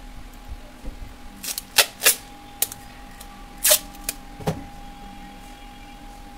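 A run of about seven sharp clicks and taps of hard plastic parts being handled on a plastic board, over a faint steady hum.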